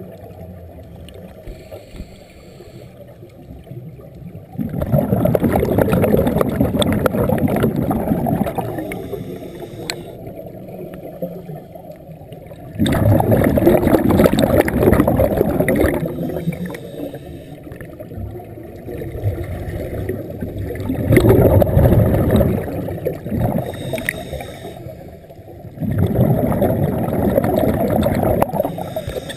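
Scuba regulator exhaust bubbles from a diver breathing out, a loud bubbling rush four times with quieter stretches between.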